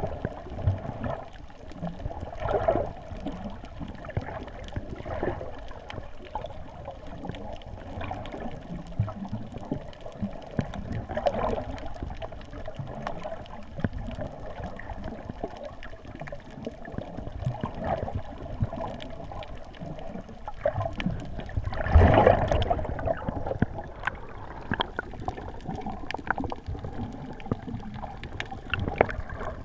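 Wind buffeting and a muffled rumble on a GoPro carried by a quadcopter in flight: an uneven, gurgling noise that swells and fades, with one louder surge about 22 seconds in.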